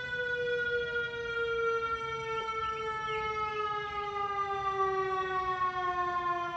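Outdoor warning siren winding down, one steady tone with its pitch falling slowly and evenly, as at the end of a siren test. Faint bird chirps sound now and then over it.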